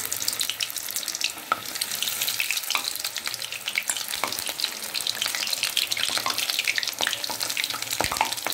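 Besan-battered bok phool (agathi flower) fritters deep-frying in hot refined oil in a kadai: a steady sizzle with many quick pops and crackles.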